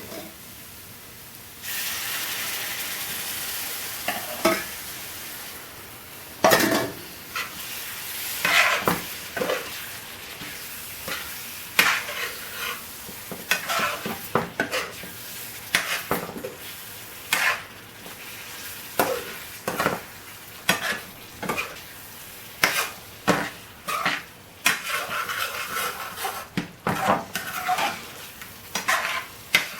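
Base gravy hitting a very hot pan of spiced chicken, a loud sizzle that starts suddenly about two seconds in. It keeps sizzling as a spoon is stirred through, knocking and scraping against the pan at irregular intervals.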